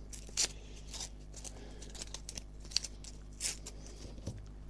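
Masking tape being torn down to a narrower strip and handled: a few short rips and crinkles.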